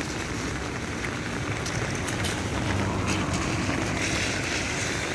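Steady rain falling, an even hiss with scattered sharp drop taps and a low rumble underneath.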